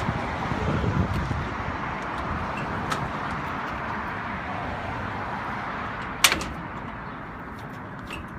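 Handling noise at the Unimog's locked tool box: a light click about three seconds in and one sharp clank a little after six seconds in, over a steady outdoor hiss.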